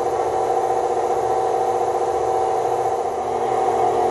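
KitchenAid Artisan stand mixer running steadily on low speed, a constant motor whir, its flat beater mixing buttermilk bread dough.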